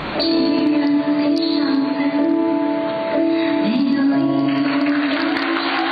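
A woman singing a slow song in long held notes while accompanying herself on an instrument. The recording sounds muffled.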